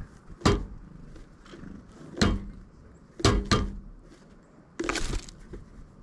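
Pileated woodpecker striking the wooden platform feeder with its bill: four sharp knocks, the last two close together, then a short rush of wingbeats about five seconds in as it flies off.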